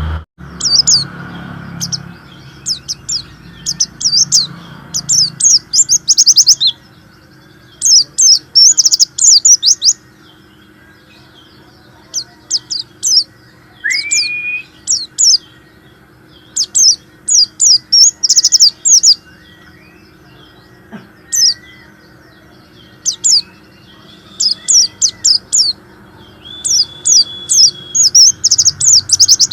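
White-eye (pleci) singing in full, energetic song: phrases of rapid, very high twittering chirps, one after another with short pauses between them, and a rising whistle about halfway through.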